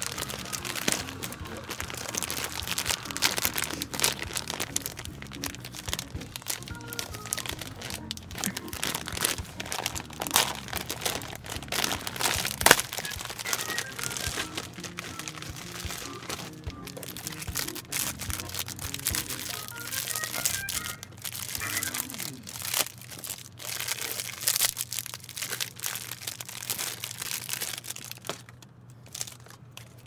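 Thin clear plastic bag crinkling and crackling as it is handled and a Swiss roll cake is pulled out of it, with many sharp crackles that thin out near the end. Music plays underneath.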